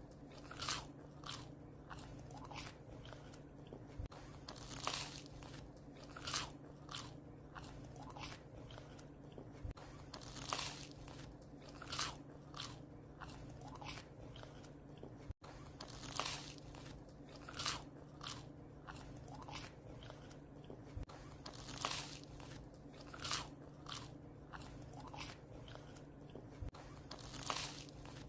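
A puppy chewing bread, with irregular crisp crunches about once or twice a second over a steady low hum.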